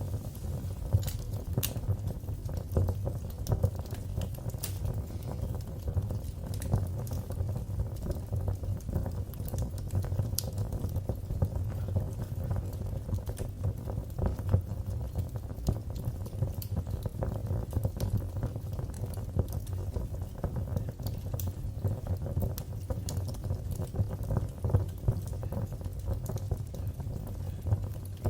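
Wood fire burning in a fireplace, with irregular sharp crackles and pops over a steady low rumble of the flames.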